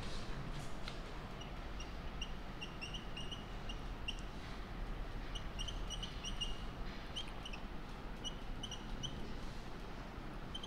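Marker squeaking on a whiteboard while drawing zigzag lines: short, high squeaks in quick runs of several at a time.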